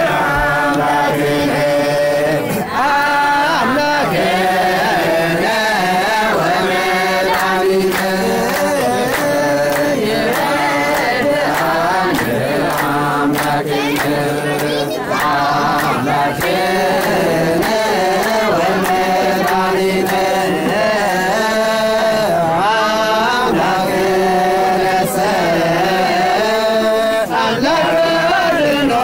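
Singing over music: a voice holding and bending long, ornamented notes above steady sustained accompaniment, without a break.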